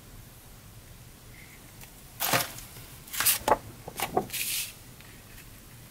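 Sheets of paper and card being handled on a craft table: a handful of short rustles and light taps, clustered about two to five seconds in.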